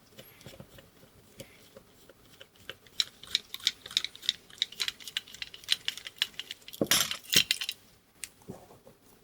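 Small metal parts and tools clicking and clinking on a workbench while a guitar effects pedal is taken apart, with rapid light clicks and a louder cluster of knocks near the end.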